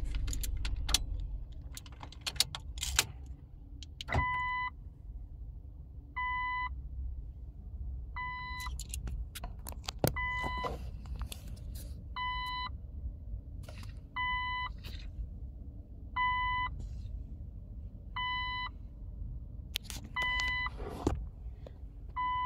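Car dashboard chime beeping about every two seconds, each beep about half a second long, starting about four seconds in. Sharp clicks and rattles come in the first few seconds and again near the middle and the end, over a low steady rumble.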